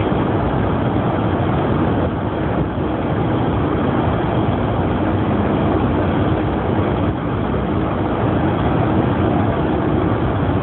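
Steady running noise of a train at speed, heard inside the driver's cab while passing through a tunnel, with a faint steady hum underneath.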